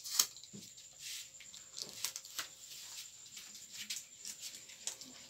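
Paper strips being handled: irregular short rustles and light taps as the strips are picked up from a table and put up on a wall, over a faint steady hum.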